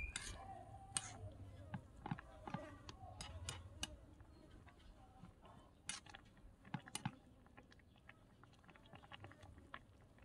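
Small metal spoon stirring and scraping through curry in a miniature metal wok, giving scattered light clinks and taps that come thickest in the first few seconds and again about six to seven seconds in.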